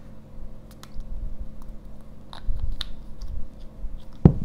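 Light clicks and handling noises of a plastic sunscreen tube being held and squeezed, with cream worked between the fingers. One louder knock comes near the end.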